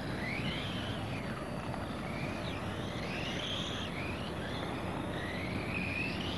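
Radio-controlled model racing cars whining past, the motor pitch rising as they accelerate and falling as they slow, several times over, over a steady hiss of tyres and background noise.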